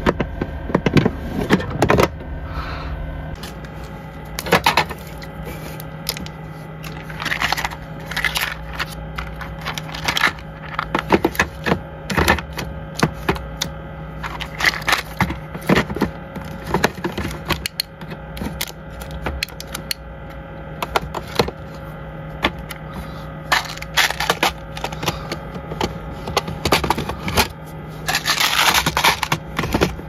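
Hand-handled cans and plastic snack packs clicking, knocking and scraping against a mini fridge's plastic walls and wire shelf as it is loaded, over a steady low hum. Near the end there is a longer crinkling rustle of plastic packaging.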